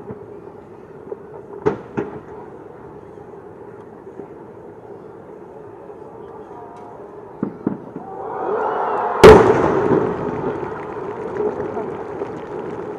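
Aerial firework shells bursting: a couple of sharp reports early on, two more about 7.5 seconds in, then a swelling hiss that leads into the loudest bang about 9 seconds in, followed by a long crackling tail.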